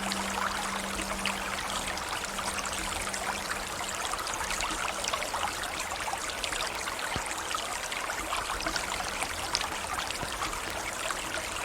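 River water flowing, a steady rush of running water with many small trickles and splashes.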